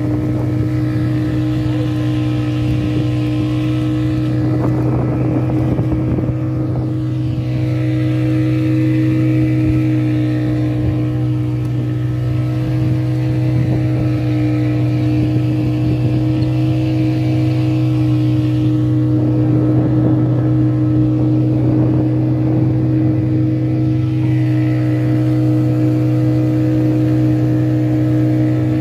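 Fishing boat's inboard engine running at a steady speed, a constant low drone with a humming overtone. A rushing hiss swells over it twice, about five and twenty seconds in.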